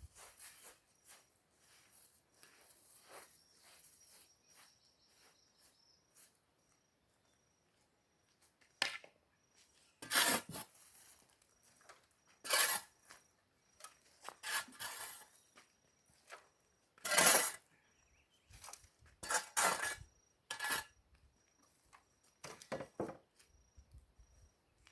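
Shovel scraping up bonfire ashes and embers from the ground in short strokes, about a dozen of them every one to two seconds, starting after a quiet stretch of several seconds.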